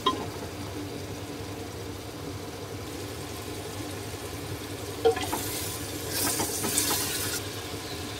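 Chicken masala and chopped tomato sizzling as they are fried in a pressure cooker pot and stirred with a spatula, over a steady low hum. The spatula knocks against the pot about five seconds in, followed by a couple of seconds of louder sizzling and scraping.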